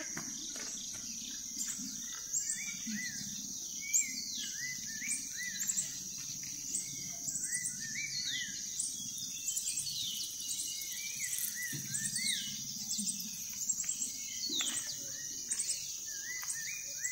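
Birds chirping with many short, repeated calls over a steady high-pitched insect drone.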